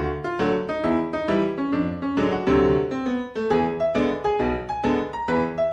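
Background piano music: a tune of separate notes played at an even, lively pace over simple chords.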